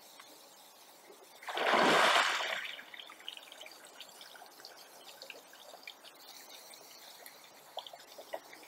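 Bull moose lifting its head out of a pond while feeding on water plants: a rush of water pouring off its head and antlers about a second and a half in, then water dripping and trickling back into the pond.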